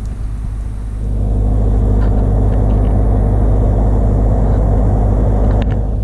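Engine-driven generator running steadily, a deep even hum. A louder rushing noise joins about a second in and eases near the end.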